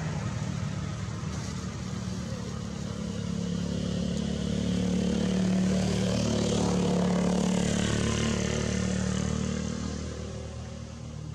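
Engine hum of a passing motor vehicle, growing louder to a peak about six to seven seconds in and then fading away.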